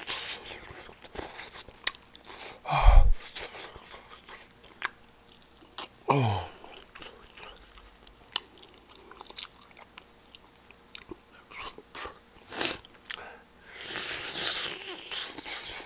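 A person chewing and eating close to the microphone, with wet mouth smacks and clicks. There are two short low hums that fall in pitch, about three and six seconds in.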